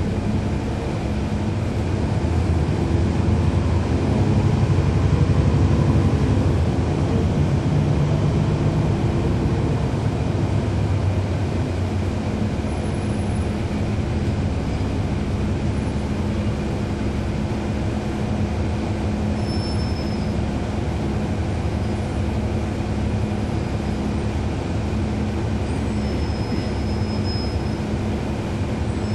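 Cummins ISL9 inline-six diesel engine of a NABI 40-SFW transit bus heard from on board, running under load. It grows louder over the first several seconds, then settles to a steady drone as the bus travels. A few brief, faint high whines appear in the second half.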